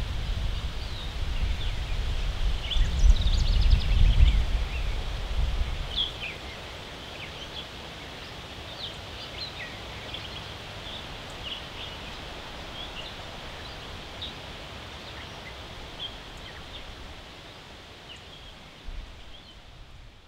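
Songbirds chirping on and off, with a short rapid trill about three seconds in, over a steady outdoor hiss. Gusts of wind rumble for the first six seconds, then die away, and the whole sound fades out at the very end.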